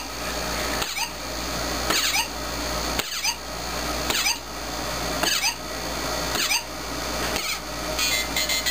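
Electronic sound chip in a Goomba plush toy playing a short sweeping electronic chirp over and over, about once a second, over a steady hiss.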